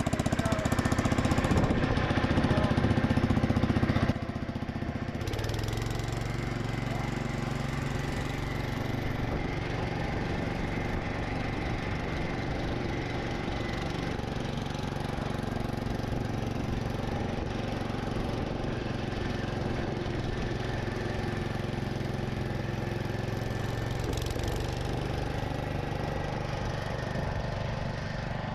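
Gravely C10 walk-behind tractor's Kohler single-cylinder engine running steadily, louder for the first four seconds and then a step quieter.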